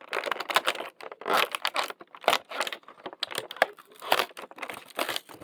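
Cardboard advent calendar packaging being torn open and crinkled by hand: a run of irregular rips and crackles.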